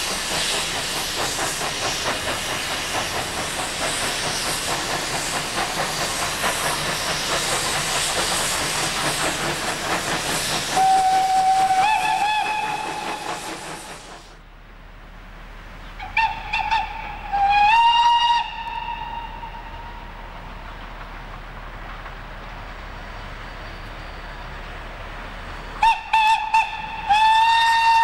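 Steam locomotive 3112, a C30-class tank engine, working close by with loud hissing steam and rapid exhaust beats, then sounding its steam whistle in one long blast. After a sudden drop in level, the whistle gives two short toots and a longer blast, and again two short toots and a longer blast near the end.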